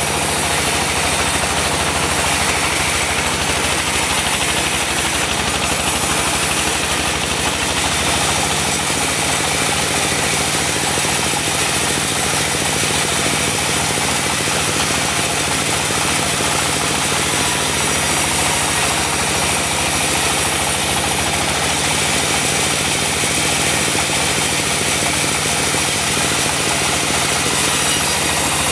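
Diesel engine of a portable sawmill running steadily, with the saw's machinery noise.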